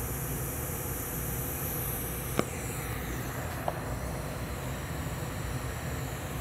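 TIG welding arc tacking a carbon steel pipe into a socket fitting: a steady hiss that cuts off with a click about two and a half seconds in as the arc is broken. A low steady hum carries on after, with a second small click with a short tone near the end.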